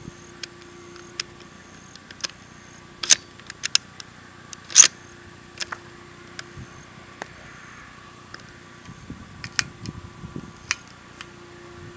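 Scattered sharp clicks and knocks from handling gear close to the microphone, the loudest about five seconds in and a quick cluster near the end, over a faint steady hum.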